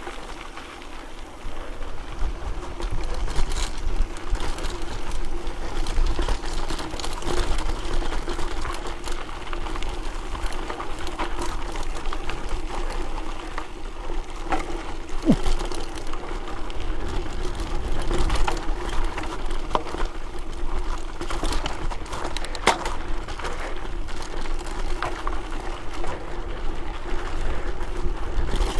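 Mountain bike ridden fast over a dry, bumpy dirt singletrack: a continuous rattle and rumble of tyres, chain and frame, with scattered sharp knocks over bumps, the loudest about three quarters of the way through. Wind buffets the microphone throughout.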